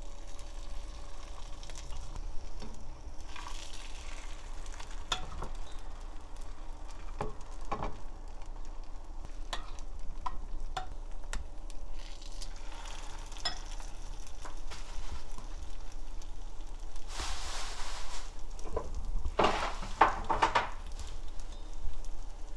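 Egg-battered pollock fillets sizzling in oil in a nonstick frying pan that is not yet fully hot, so the sizzle is light. Short clicks and taps of a metal spoon against the pan run through it as pieces are laid in, with a couple of louder bursts of sizzling near the end.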